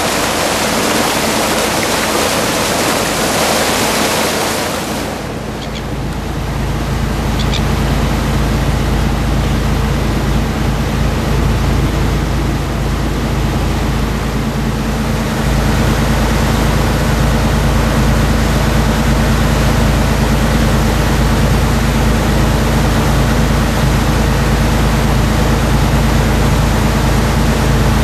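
Bow water of a moving boat rushing along the hull, which changes abruptly about five seconds in to the boat's engine running with a steady low hum over a softer hiss of water and wind; the hum gets a little louder about halfway through.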